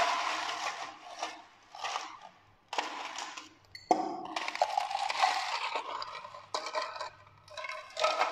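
Ice cubes scooped from a metal ice pot and dropped into a glass, clattering and clinking in a run of short bursts, the biggest about four seconds in.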